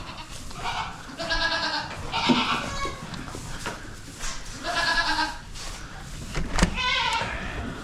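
Hungry goats bleating repeatedly, about five quavering calls, while waiting to be fed hay. A single sharp knock comes near the end.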